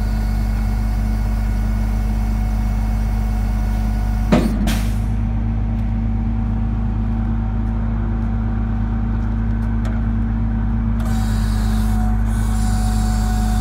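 Crane truck's engine running steadily with a steady hum, driving the Palfinger crane's hydraulics. A short, sharp hiss-like sound cuts in about four seconds in, and from about eleven seconds on a hiss rises over the hum as the outrigger control is worked.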